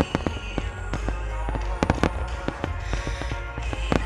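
Fireworks going off: a rapid, irregular run of sharp bangs and crackles, several a second. Music with long held notes plays underneath.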